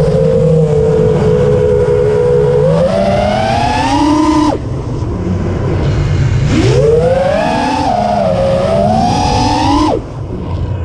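Small drone's electric motors whining, the pitch climbing with throttle. It cuts off sharply about four and a half seconds in, spins back up and climbs again about two seconds later, and cuts again near the end, over a steady rush of wind on the onboard microphone.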